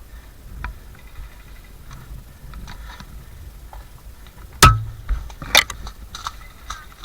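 Scattered sharp clicks and snaps over a low rumble, the two loudest about four and a half and five and a half seconds in.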